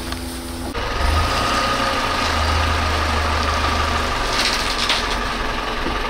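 A truck's engine running steadily: a low rumble with a thin steady whine above it. The sound changes abruptly just under a second in.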